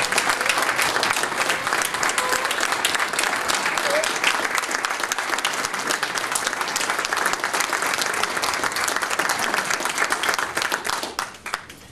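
Audience applauding steadily, with the clapping dying away about a second before the end.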